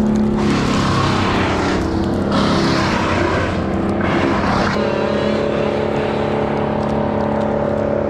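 A motor engine running steadily, with loud rushing noise over it for the first half and a change to a new steady pitch a little past the middle.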